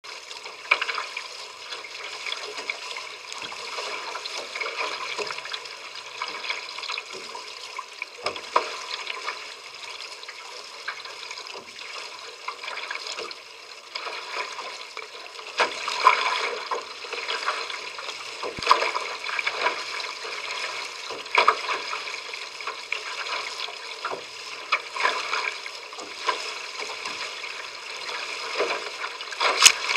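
Water rushing and slapping along the hull of a small sailing trimaran underway: a steady wash broken by frequent sharp splashes, a few of them louder than the rest.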